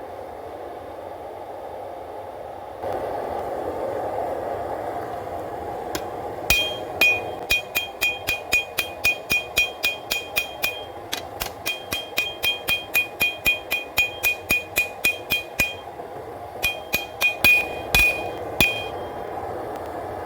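A hammer striking hot W-2 steel on an anvil, about three blows a second with a bright ring after each, in runs broken by two short pauses. A steady rushing noise, louder from about three seconds in, runs underneath.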